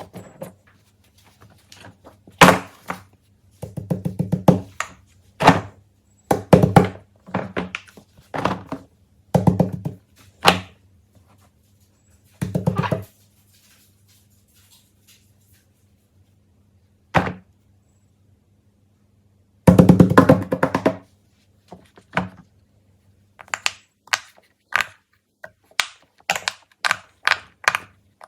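Silicone pop-it fidget toy bubbles being pressed, in quick runs of popping clicks with pauses between them, over a faint steady low hum.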